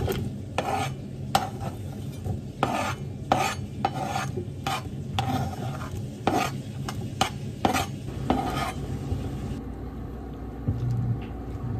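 A kitchen knife scraping sliced onion off a plastic cutting board into a pot, a quick run of short scrapes for the first eight seconds or so. Near the end it gives way to quieter stirring with a spatula in the pot.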